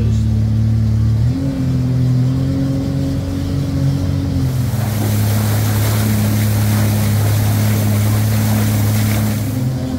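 Sea-Doo Sportster jet boat's 215 hp supercharged engine running steadily underway, its pitch shifting about a second in. From about halfway a loud rush of water spray and wind hiss joins the engine until just before the end.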